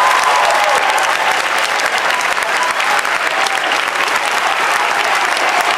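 Audience applauding, dense and steady, with a few cheering voices in the first second.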